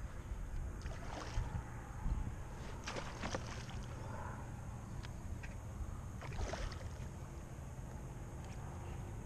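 Kayak sounds on the water: a steady low rumble of water and wind against the hull and microphone, with a few short sharp knocks or splashes about one, three and six and a half seconds in.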